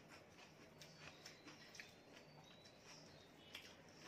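Very faint eating sounds: scattered soft wet clicks and smacks from fingers mixing watered rice (panta bhat) on a plate, and from chewing.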